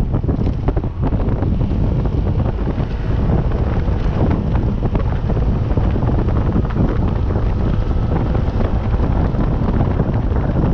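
Heavy, steady wind buffeting on the microphone of a moving vehicle, a dense low rumble with the vehicle's running noise under it.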